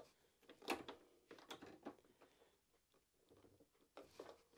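Faint, scattered metallic clicks and scrapes of pliers gripping and working at a broken needle jammed in a Brother HF27 sewing machine's needle clamp.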